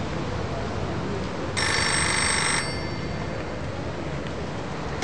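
Street payphone ringing: one electronic ring of several tones together, about a second long, starting a bit over a second and a half in, over a steady background hiss.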